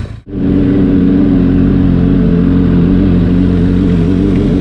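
Benelli TRK 502 X's parallel-twin engine running at a steady pitch while riding. The sound cuts out briefly just after the start.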